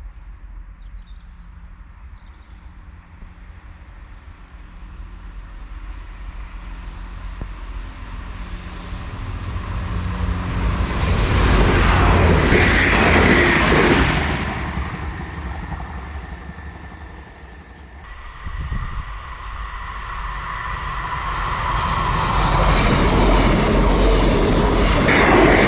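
GWR passenger train passing along the line, its noise building to a peak about twelve seconds in and then fading. After an abrupt change about eighteen seconds in, a second train approaches and grows louder to the end.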